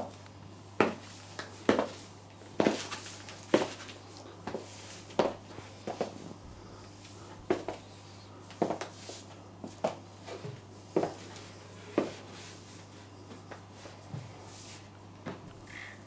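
Stiletto heels clicking on a ceramic tile floor in sharp, irregular steps about once a second, while an overripe banana is squashed flat underfoot.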